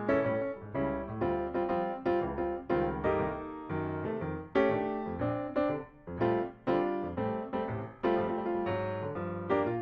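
Background piano music: struck notes and chords in a steady rhythm, each note fading after it is played.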